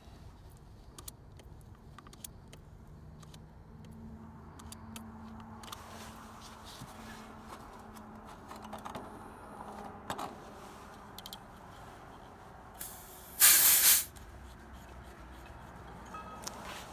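One short, loud burst of hiss, under a second long, about two-thirds of the way in, over faint background noise with a few light clicks and a faint low hum.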